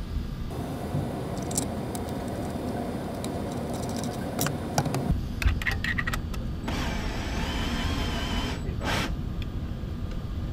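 Cordless drill/driver whirring in a short run about two-thirds of the way in, amid metallic clicks and handling of screws and nuts being fastened to a 3D printer's bed plate, with a short loud scrape near the end.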